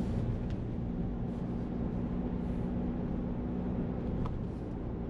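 Car driving: steady road and engine rumble with a low hum that drops out about four seconds in, and a faint tick or two.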